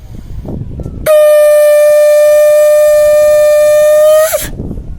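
Conch shell (shankh) blown in one loud, steady note of about three seconds, starting about a second in and ending with a slight bend in pitch: a shankhnad, sounded to open a proclamation.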